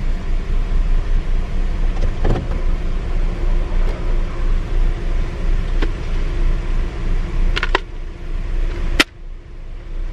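Car running, heard from inside the cabin: a steady low engine and road rumble with a few light clicks. A sharp click about nine seconds in, after which the sound briefly goes much quieter.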